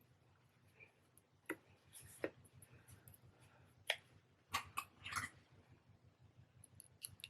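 Quiet handling noises as a wig cap is stretched and adjusted over plaited hair: a few soft clicks and rustles, with a short cluster of them about halfway through.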